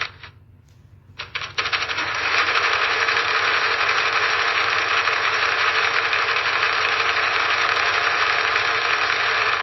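Sewing machine sewing a line of stitches: a short run right at the start, a pause, then about a second in it restarts with a few separate stitches, speeds up and runs steadily at full speed until it stops near the end. A low motor hum runs underneath.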